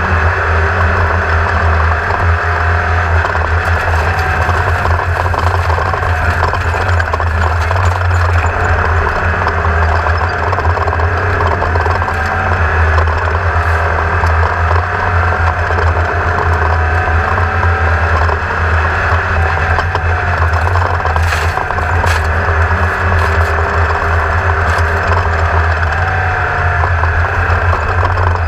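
An engine running steadily at an even speed, with a strong, constant low hum.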